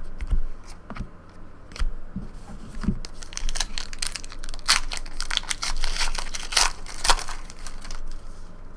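Foil wrapper of a trading card pack crinkling and tearing as it is ripped open, a dense run of sharp crackles heaviest in the middle of the stretch.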